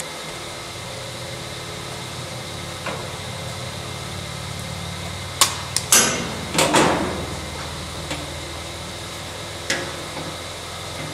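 Y-TEX ear-tag applicator squeezed shut on a calf's ear, punching the RFID tag's button through into the female part. A small click comes first, then a loud sharp snap about six seconds in, followed at once by a short clatter, with a steady low hum underneath.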